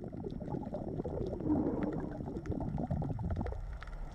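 Low underwater bubbling and gurgling water noise, with scattered faint clicks.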